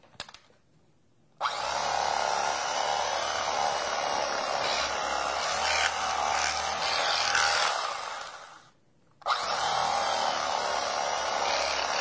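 Cuisinart electric knife running, its reciprocating serrated blades sawing through a crusty loaf of bread with a steady buzz. It switches on about a second and a half in, dies away and stops briefly near nine seconds, then starts again.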